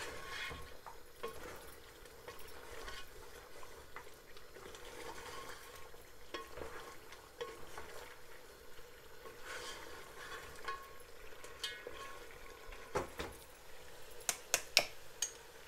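Mutton pieces frying in spiced oil in a metal pot while a spatula stirs and scrapes them, the bhuna stage of browning the meat with its masala. A few sharper knocks of the spatula against the pot come near the end.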